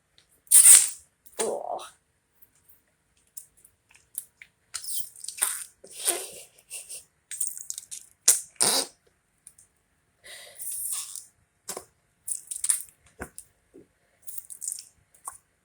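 Whoopee noise putty squeezed in its pot, giving a string of short, irregular squelching fart noises.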